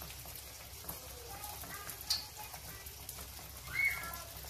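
Keema kachori deep-frying in hot oil on medium-low heat: a steady, fine crackling sizzle. A sharp click about two seconds in and a brief high chirp near the end stand out above it.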